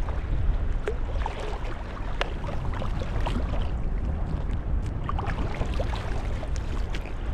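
Wind buffeting the microphone with a steady low rumble, over a hiss of water and many scattered small clicks.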